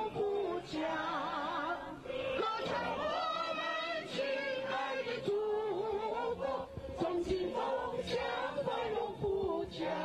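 A group of voices singing a song together over musical accompaniment, the melody held in long, wavering notes.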